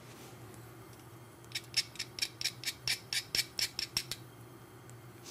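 A knife scraping pressed garlic off a metal garlic press: a quick run of about a dozen short scrapes, roughly five a second, starting about a second and a half in and lasting some two and a half seconds.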